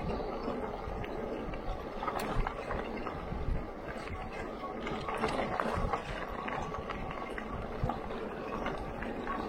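Electric bike riding along a dirt-and-gravel trail: a steady rush of tyre and ground noise with a heavy low rumble and scattered small knocks from the bumps.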